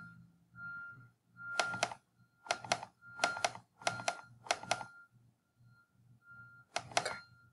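Computer mouse double-clicked about six times, each a quick pair of sharp clicks, over a faint steady high whine and low electrical hum.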